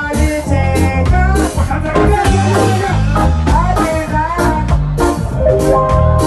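Live reggae band playing a love song: a steady beat with bass, guitar, drum kit and keyboard, and a singer's voice over it.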